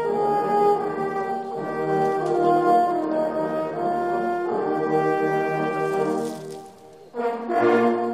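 Background music of sustained brass chords in a French horn sound, changing notes slowly. It drops away briefly about seven seconds in, then comes back.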